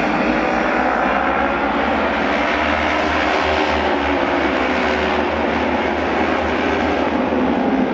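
Several auto-race motorcycle engines at race speed: a loud, steady engine drone with several overlapping pitches that drift slowly up and down.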